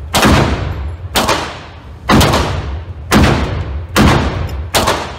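Glock 22 pistol (.40 S&W) fired six times at a steady pace of about one shot a second, each shot echoing off the walls of an indoor shooting range.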